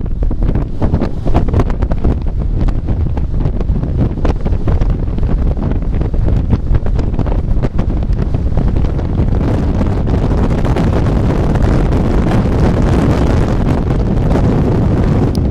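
Storm-force wind buffeting the microphone: loud, choppy gusts with heavy low rumble in the first half, turning to a steadier rush of wind from about nine seconds in.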